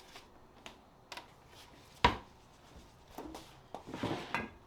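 Kitchen handling sounds: scattered light knocks, one sharp loud knock about two seconds in, then rustling and scraping near the end.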